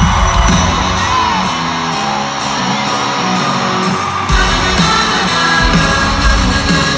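Live pop-rock band and female lead singer playing through an arena PA, recorded from within the crowd. The bass and drums drop out about a second in and come back in for the last three seconds or so.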